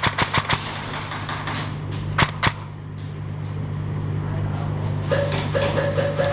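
Airsoft electric guns firing: a fast burst of about ten shots a second dying out in the first half-second, then two sharp shots a third of a second apart a little after two seconds in.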